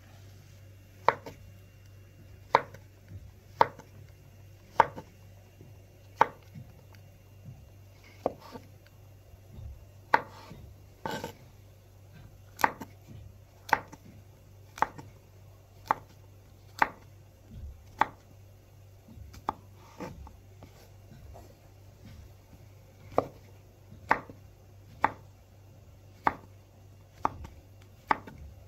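A knife chopping on a cutting board: slow, separate cuts about one a second, each a sharp knock, with a short pause near the middle.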